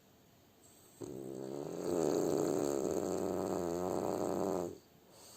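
French bulldog snoring: one long snore of nearly four seconds, starting about a second in, growing louder partway through, then stopping abruptly.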